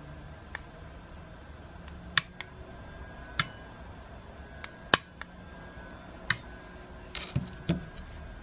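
Sharp, separate clicks as buttons on a four-button gate/garage remote are pressed, about eight spread over several seconds, then a few knocks near the end as the remote is set down on a hard surface.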